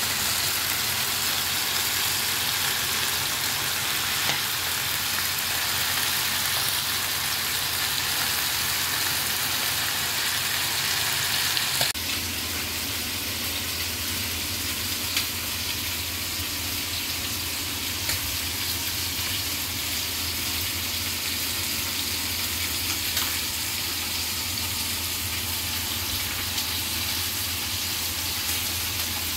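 Chicken thighs frying in an oiled cast-iron skillet: a steady, dense sizzle. About twelve seconds in, the sizzle abruptly becomes a little quieter and duller, joined by a low hum.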